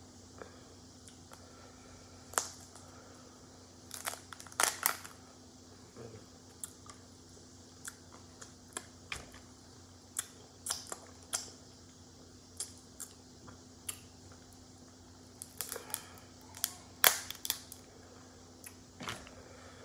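Cooked crab shells being cracked and pulled apart by hand: a scattered run of sharp cracks and snaps, with louder clusters about four to five seconds in and again near the end.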